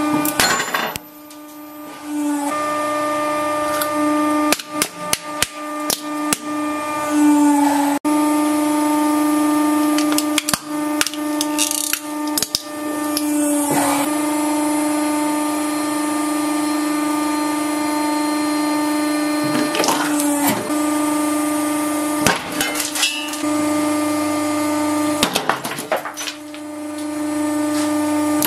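A hydraulic press runs with a steady motor-and-pump whine. Hard objects crushed under its ram, billiard balls and hard plastic among them, crack and snap sharply in clusters several times.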